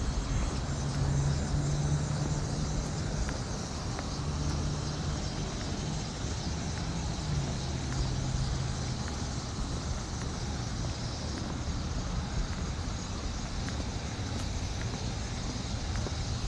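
Steady rushing noise of the flooded Delaware River running high after heavy rain. A low engine-like hum sounds on and off through the first half and fades out about nine seconds in.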